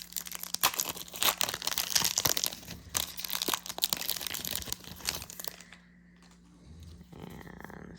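Foil wrapper of a Magic: The Gathering booster pack being torn open and crinkled, a dense crackling that stops about five and a half seconds in.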